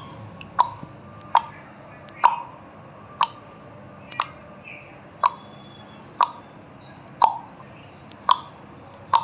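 Countdown timer sound effect: sharp clock-like ticks about once a second, about ten in all, over a steady background hiss.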